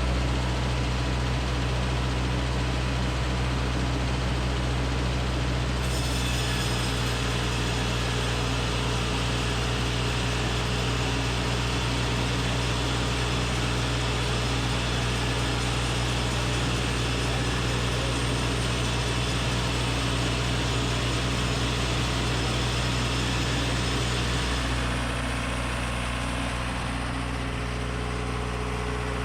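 A heavy engine or machine running steadily with a deep hum. A brighter hiss joins it about six seconds in and drops away a few seconds before the end.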